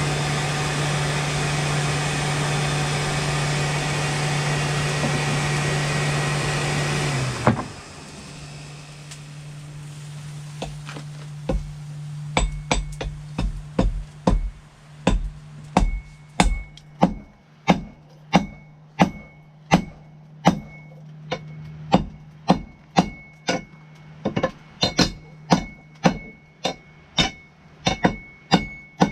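A steady machine noise with a low hum, which cuts off about seven seconds in. Then a blacksmith's hammer strikes steel on an anvil, hesitant at first and then a regular beat of about two blows a second, many of them with a ringing anvil tone.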